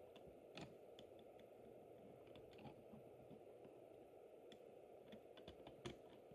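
Near silence: a low steady hum with faint, irregular small clicks, about a dozen over the stretch.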